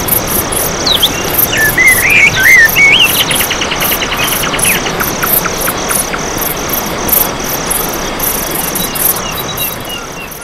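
Nature ambience of an insect chirping in an even rhythm of about two or three pulses a second. About a second in, a bird sings a warbling phrase, then a fast trill that slows and fades out.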